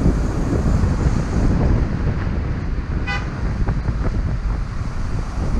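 Car driving through slow city traffic, with steady road rumble and wind buffeting on the microphone; a short car horn toot sounds about three seconds in.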